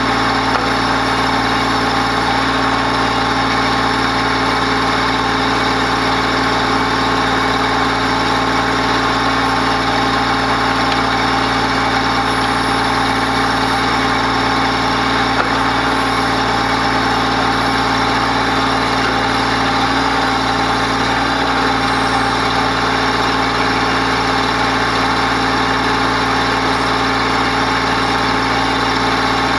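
Mahindra Max 28XL compact tractor's diesel engine running at a steady, unchanging speed.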